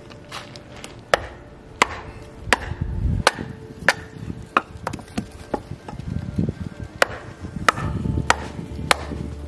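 Wooden baton striking the spine of a TOPS Steel Eagle 111A Hunter's Point knife to drive it down through a block of seasoned wood: about a dozen sharp knocks, roughly three every two seconds.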